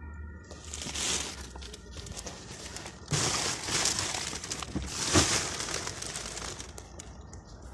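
Plastic shopping bags rustling and crinkling as they are handled, in several bursts, the loudest a little after three seconds in and again around five seconds in.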